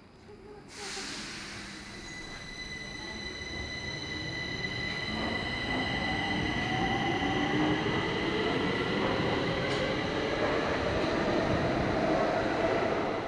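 Stockholm metro train pulling out of the station: a sudden hiss about a second in, then a steady high squeal and a motor whine that rises in pitch as the train picks up speed, growing louder.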